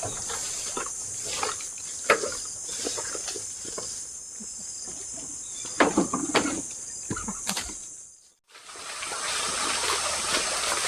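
Forest insects drone in a steady high-pitched chorus, with a few short rustles and steps through undergrowth. After a sudden break about eight seconds in, a higher insect drone continues over a hissing background.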